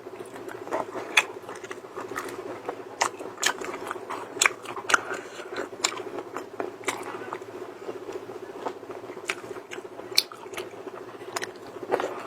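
A person biting and chewing shelled food close to the microphone: irregular crunches and cracks of shell, over a steady hum.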